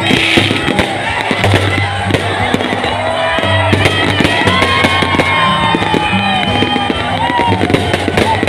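Fireworks banging and crackling in quick succession over loud music with a deep bass line.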